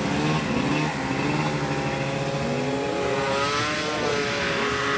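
Snowmobile engine running at speed, its pitch rising and falling as the throttle changes.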